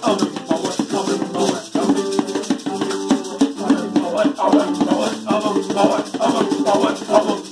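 Live acoustic jam: a strummed acoustic guitar with a man singing over it, and a small goblet-shaped hand drum struck by hand in a steady rhythm.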